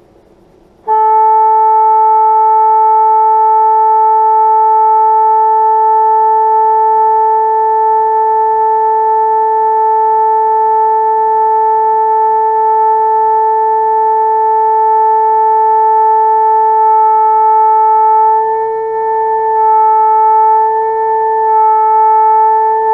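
Bassoon holding one long, steady A for tuning, starting about a second in and held for about twenty seconds. Its pitch and loudness waver slightly near the end before it stops.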